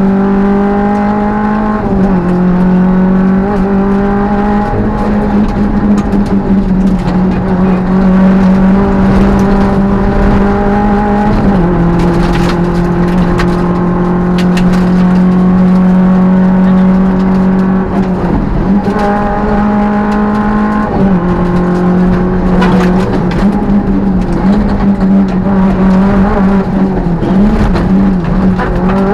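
Peugeot 205 rally car's four-cylinder engine heard from inside the cabin, running hard at high, steady revs. Its pitch drops suddenly a few times, about 2, 11, 19 and 21 seconds in, and climbs back each time.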